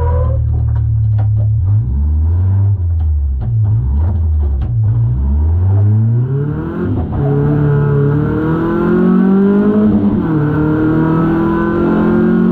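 BMW drift car's engine heard from inside the cabin: the revs bounce up and down with sharp clicks and rattles for the first few seconds, then climb steadily under acceleration, dip briefly at a gear change about ten seconds in, and climb again.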